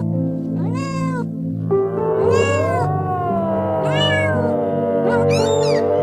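Domestic cat meowing, four short rising-and-falling meows about a second and a half apart, over background music.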